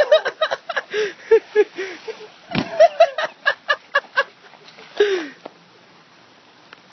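A person laughing hard in quick bursts of short 'ha' sounds, dying away about five and a half seconds in.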